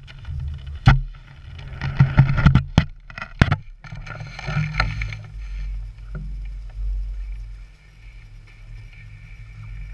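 Wind buffeting an action camera's microphone in a low, uneven rumble, with several sharp knocks and clatters in the first four seconds.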